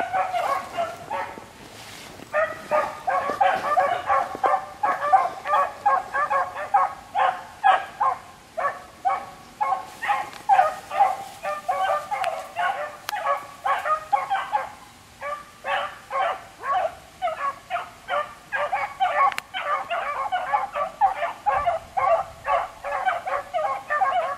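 Several beagles baying on a rabbit trail: quick, overlapping calls, about three a second, with short lulls about a second in and again in the middle.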